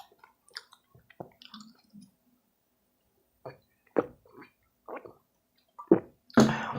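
Chewing and mouth noises from a person eating stuffed nachos, heard as short separate sounds with the loudest about four seconds in and near the end.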